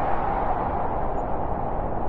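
Blizzard wind howling steadily, a dense rushing noise strongest in a band in the middle range, with no gusts or breaks.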